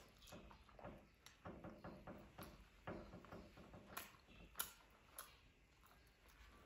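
Quiet, close-up mouth sounds of eating curried chicken legs: chewing, wet lip smacks and irregular sharp clicks as meat is bitten and pulled from the bone.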